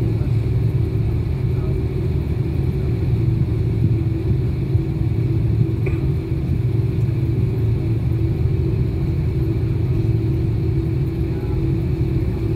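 Steady low rumble inside a jet airliner's cabin as it taxis, its engines at idle, with a few steady droning tones under it.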